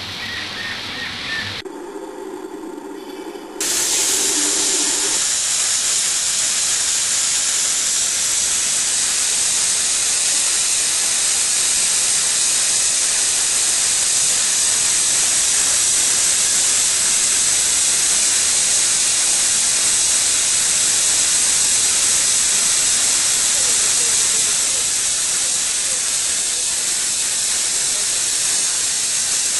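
Steam locomotive No. 191, a North British-built engine, blowing off a jet of steam from low on its side: a loud, steady hiss that comes on suddenly about three and a half seconds in and holds.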